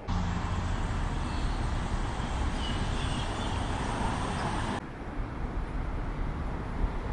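Street traffic noise: a steady rumble and hiss of passing vehicles. About five seconds in it cuts abruptly to a quieter, duller traffic sound.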